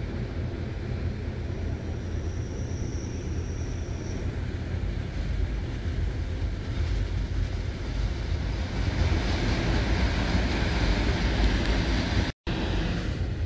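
Passenger train running, heard at a sleeping-car window: a steady rumble of the carriage on the track with rushing air, growing louder about two thirds of the way through. A faint thin high whine comes in for about two seconds near the start, and the sound cuts out for a moment near the end.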